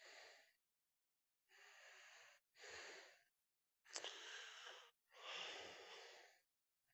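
Faint breathing: about five soft breaths, each up to a second or so long, with dead silence between them, and a small click about four seconds in.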